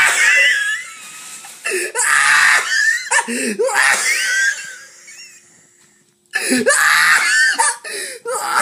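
A woman laughing helplessly in high-pitched, wheezing squeals, gasping between bursts. The laughter fades almost away about five seconds in and breaks out again about a second later.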